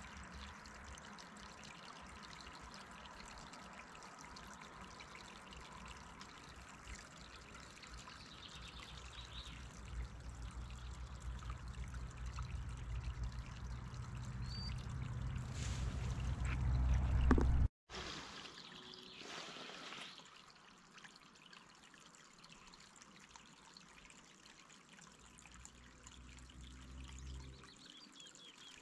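Shallow stream trickling over gravel into a loch, a steady watery hiss. A low rumble builds up under it over several seconds and then cuts off abruptly about two thirds of the way through, after which the trickle carries on more quietly.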